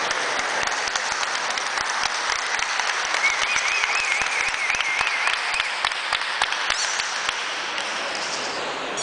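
Spectators applauding, dense clapping that thins out and stops near the end. A wavering whistle sounds over it partway through.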